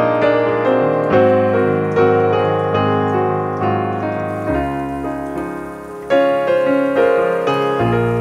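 Background piano music, with notes struck roughly once a second and dying away, over a changing bass note.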